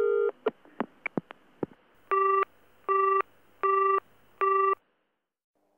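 A telephone call being hung up: a short tone and a few clicks on the line, then a busy tone of four equal beeps about three-quarters of a second apart, after which the audio cuts off.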